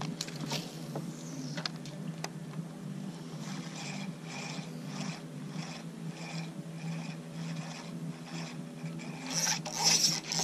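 Spinning reel being cranked to retrieve a lure, its handle turning with a soft repeating stroke about twice a second, growing louder near the end.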